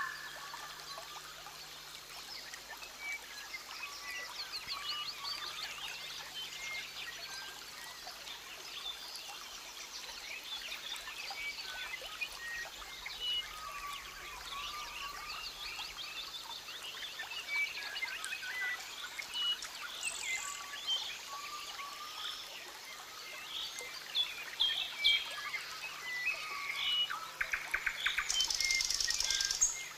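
Rainforest ambience: many birds calling in short whistles and chirps over a steady background hiss. Near the end comes a louder rapid trill with a high buzzing sound.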